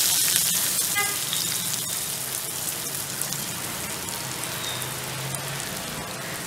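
Chopped onion sizzling and crackling in hot oil in a kadai. The sizzle is loudest as the onion goes in, then settles to a steady frying hiss.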